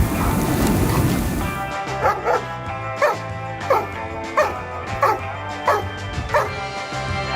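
A steady rushing noise for about the first second and a half, then a dog barking about eight times, roughly one bark every two-thirds of a second, over background music.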